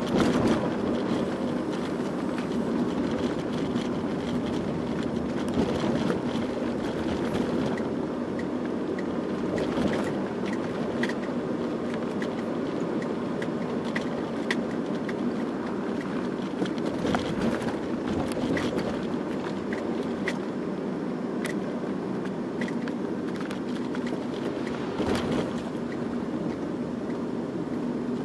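Steady engine and road noise inside a moving car's cabin, an even low drone with scattered light clicks.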